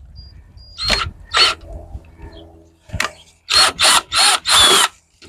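Cordless drill-driver backing screws out of a chair's base in short trigger bursts: two brief runs about a second in, a click, then four quick bursts in a row near the end.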